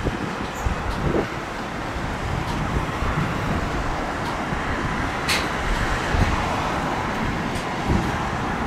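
Jet airliner's engines at takeoff thrust, a steady rushing noise heard from a distance as the plane lifts off and climbs, with gusty wind rumble on the microphone and a sharp click about five seconds in.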